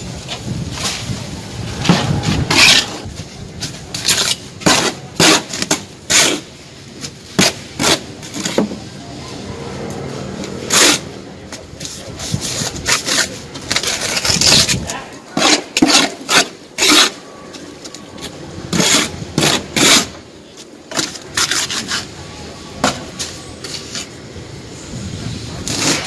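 A steel plastering trowel scraping and tapping on wet sand-and-cement mortar. It comes in short, irregular strokes with brief pauses between them.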